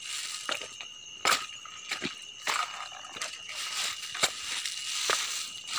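Footsteps crunching over stones and dry leaves: irregular clicks and crackles, over a faint steady high-pitched tone.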